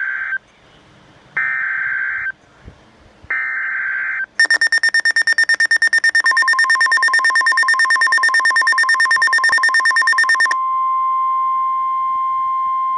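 NOAA Weather Radio Emergency Alert System tornado warning alert. It opens with three short bursts of warbling digital data tones, the SAME header. About four seconds in, a rapid pulsing beep starts, and the steady 1050 Hz warning alarm tone joins it about two seconds later. The beeping stops about ten seconds in, leaving the steady tone alone, and starts again near the end.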